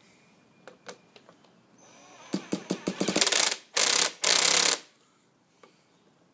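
Electric starter spinning the small nitro engine of a 1/5 scale RC motorbike in three short bursts, without the engine catching. The owner reports the clutch and drivetrain locking up during these start attempts.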